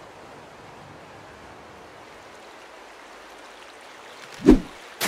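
Soft steady sea-wave ambience, broken about four and a half seconds in by a short low thump, with a loud splash into water starting right at the end.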